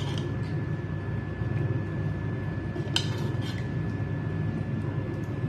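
Kitchen utensils clinking against dishes or cookware: one clink at the start and two about three seconds in, over a steady low hum.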